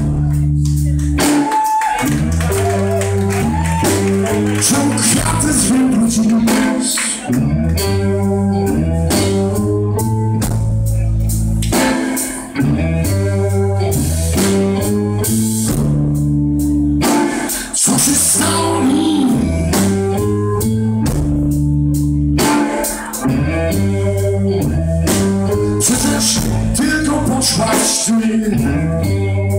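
Live blues band playing: two electric guitars, a bass guitar and a drum kit working through a riff that repeats about every five seconds.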